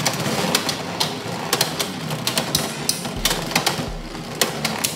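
Two Beyblade X spinning tops, SphinxCowl and Dran Dagger, whirring across a plastic stadium floor, with frequent sharp clicks and clacks as they strike each other and the stadium rail.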